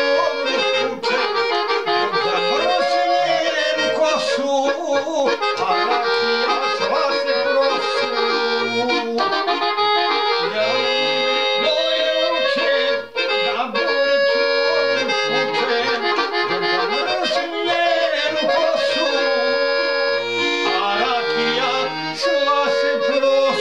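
Accordion playing a folk tune: sustained melody notes in the right hand over short, regularly changing bass notes, running continuously.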